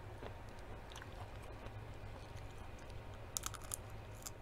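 A person chewing food close to the microphone, with a quick cluster of small mouth clicks about three and a half seconds in, over a faint steady low hum.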